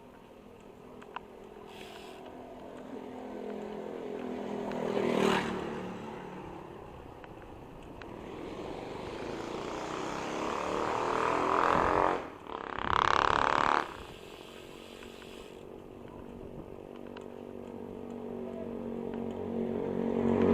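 Motor vehicles passing close by on the road, their engine pitch dropping as each goes past: one about five seconds in, a louder one between about ten and fourteen seconds, and another coming up near the end.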